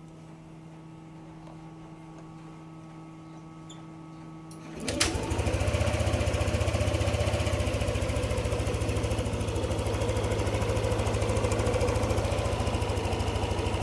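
Yamaha NMAX 155 V2 scooter's single-cylinder engine starting about five seconds in and then idling steadily, after a few seconds of faint steady hum. The idle now holds steady: it has been restored by an ECU reflash and a throttle position sensor reset, after stalling and a low idle.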